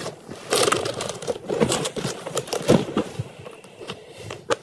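A quilted handbag with a metal chain strap being handled and shifted on a bedspread: irregular rustling and scraping with light clinks, and a sharp click near the end.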